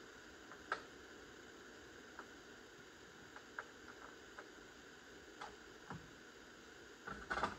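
Scattered light clicks and taps from hands handling small parts and tools during a chainsaw primer bulb replacement, with a short cluster of louder rattling clicks near the end.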